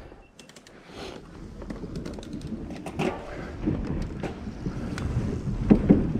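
Mountain bike rolling off down a dirt trail: tyre noise with scattered clicks and rattles, and wind on the microphone, growing steadily louder as the bike picks up speed.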